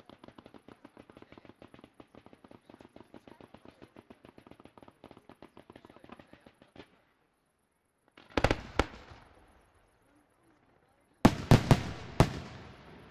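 A fireworks display. For the first seven seconds or so there is a fast, dense run of small pops from low-level shots fired in fans of coloured stars. After a short lull, two loud aerial shell bursts go off about half a second apart. Near the end comes a quick cluster of about four loud bursts, each leaving a rumbling echo.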